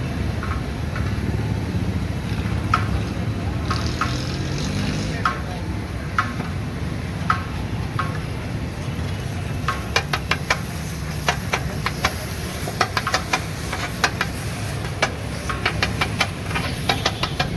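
Metal spatula clicking against a hot pan while egg keema is stirred and fries. The strikes come about once a second at first. From about halfway they turn into quick clattering, with a sizzling hiss, over a steady low street rumble.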